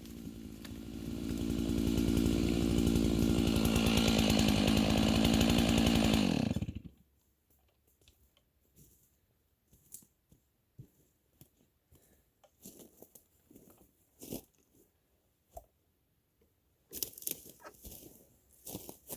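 Two-stroke chainsaw running steadily, growing louder about two seconds in, then shut off about seven seconds in and dying away. A few faint clicks follow, then light rustling near the end.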